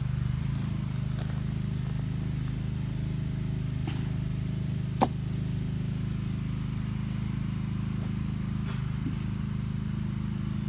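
Tractor engine idling steadily, with one sharp click about five seconds in.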